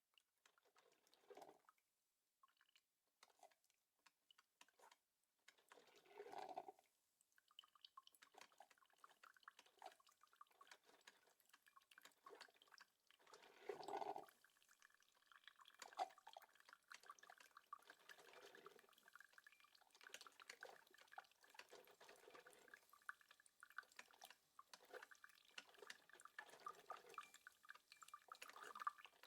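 Electric coffee maker brewing, faint: water dripping and gurgling, with short louder gurgling surges about six and fourteen seconds in.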